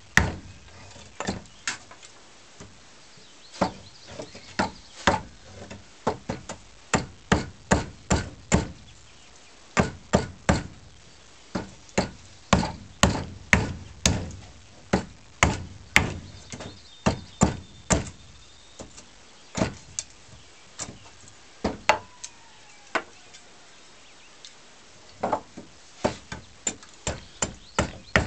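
Side axe hewing a wooden snath grip: a long run of sharp chopping blows, irregular at about one to two a second, with a couple of short pauses in the second half.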